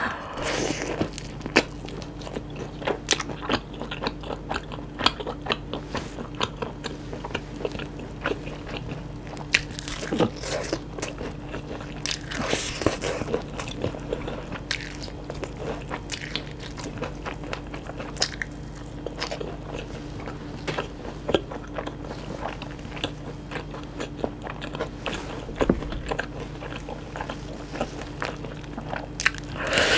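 Close-miked biting and chewing of yangnyeom chicken, sauce-coated Korean fried chicken: a run of short, crisp crunches, denser in a few bursts, over a faint steady hum.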